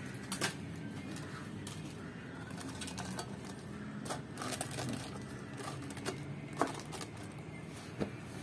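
Napa cabbage leaves being handled and laid onto a perforated aluminium steamer tray: scattered crisp leaf rustles and light taps and clicks, with several sharper ones in the second half, over a steady low hum.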